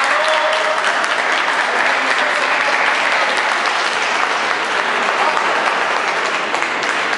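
Audience applauding steadily, a dense patter of clapping that eases off a little near the end.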